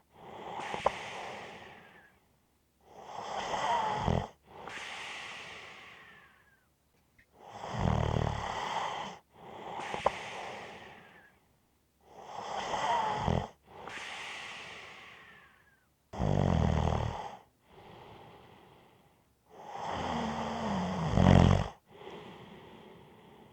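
A person snoring steadily through about five breaths. Each breath is a loud, rattling snore on the in-breath, followed by a quieter out-breath that fades away.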